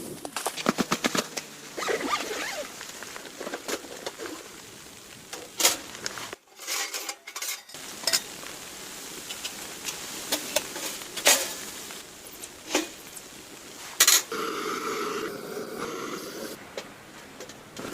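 Camp cooking: food sizzling in a pan, with repeated clinks and knocks of utensils against cookware.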